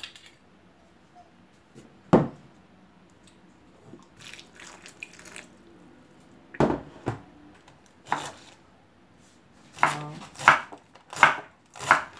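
A single knock, then soft water sloshing and dripping as dried shiitake mushrooms are pressed in a bowl of soaking water. About ten seconds in, a kitchen knife starts shredding baby napa cabbage on a wooden cutting board, in steady strokes about three every two seconds.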